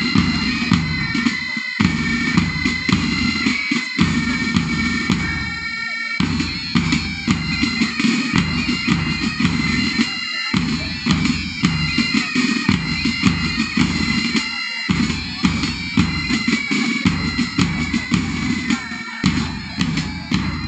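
Marching music with a steady drum beat under held instrument notes; the drums drop out briefly about six seconds in.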